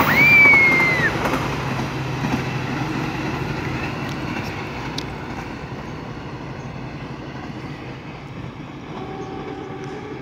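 Kaligung passenger train's carriages running past on the rails and then receding, their rumble fading steadily. A brief high-pitched squeal from the wheels rises and falls in the first second.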